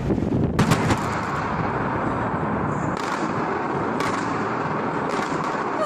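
Demolition charges going off in a building implosion: a few sharp cracks, the first cluster under a second in and then single ones about a second apart, over a steady rush of noise.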